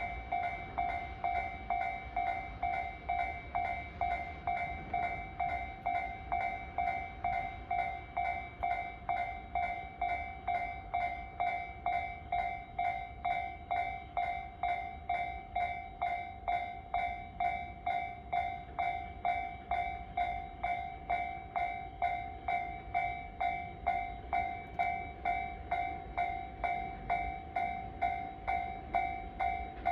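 Japanese level-crossing electronic warning bell ringing steadily at about two strikes a second, the signal that the crossing is closed for an approaching or passing train.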